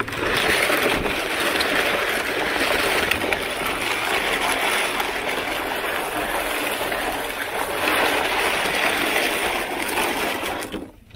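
A plastic crate loaded with scrap metal dragged by a string across concrete paving slabs: a continuous rough scraping that stops shortly before the end.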